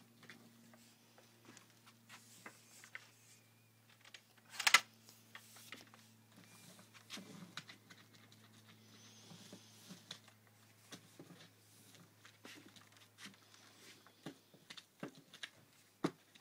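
Faint scattered clicks and taps of a paint roller on an extension pole being worked over rough wood siding. A low steady hum runs underneath, and there is one louder short burst of noise about four and a half seconds in.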